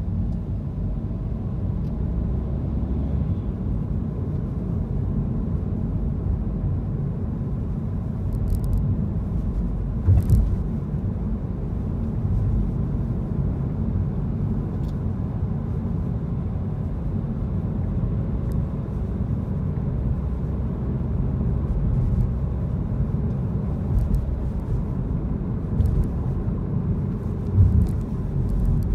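Steady low rumble of a car driving through city streets, road and engine noise heard from inside the cabin. Two brief thumps stand out, about ten seconds in and again near the end.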